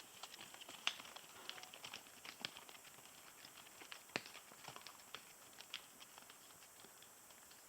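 Faint, irregular clicks and knocks of horses' hooves on a rocky trail as the riders move off.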